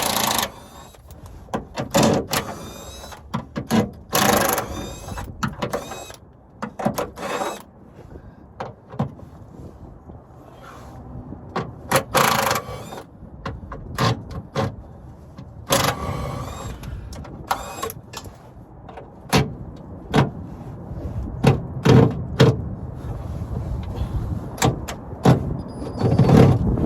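Irregular metal clanks, knocks and clatter from hand tools and sockets on rusty exhaust bolts, with wind rumbling on the microphone.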